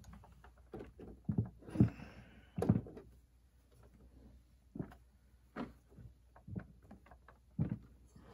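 Irregular knocks and thumps from handling a 1/8-scale RC truck on a plastic stand on a wooden bench. There is a cluster of louder knocks in the first three seconds, then single knocks about once a second.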